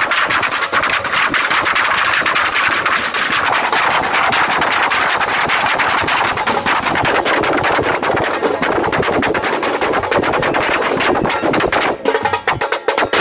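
Drum troupe playing fast, dense beats on large bass drums and metal-shelled side drums beaten with sticks, the strokes packed into rapid rolls. About twelve seconds in, the playing opens up into more separate strikes.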